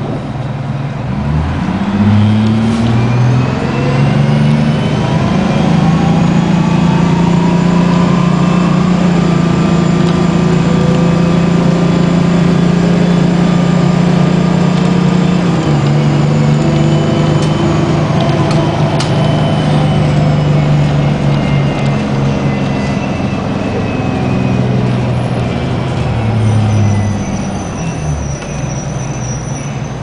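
Detroit Diesel 6V92TA two-stroke V6 diesel of a 1994 New Flyer D40 bus, heard from inside the cabin, pulling away and accelerating, with a drivetrain whine rising along with it. The engine note steps down about halfway through, then the engine and whine sink and quieten as the bus slows near the end.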